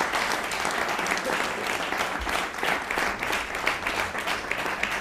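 Audience applauding: many people clapping.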